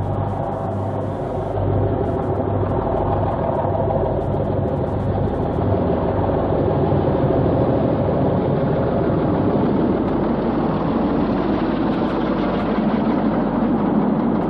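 Diesel locomotive engine running with a steady heavy drone, a little louder from about two seconds in.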